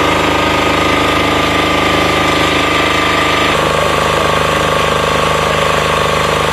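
An engine running loud and steady with a rapid, even pulse at a water-well site; its note changes abruptly about three and a half seconds in.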